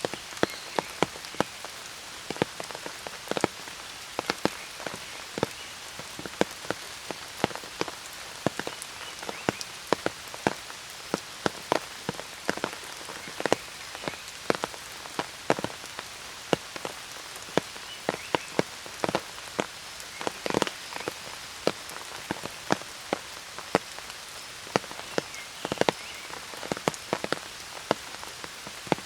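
Steady rain, with frequent sharp, irregular taps of large raindrops striking close by.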